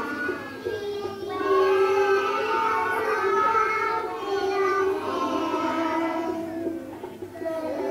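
A group of young children singing a song together over music, holding long notes.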